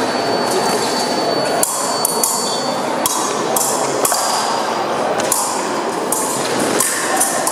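Epee blades clinking and clashing against each other in irregular sharp metallic strikes, over the reverberant background hum of a sports hall.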